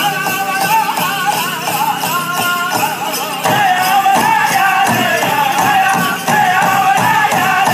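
Powwow drum group singing a men's chicken dance contest song in high, wavering voices over a large drum beaten in a steady pulse. The drumbeat turns heavier and louder about halfway through, with the dancers' bells jingling along.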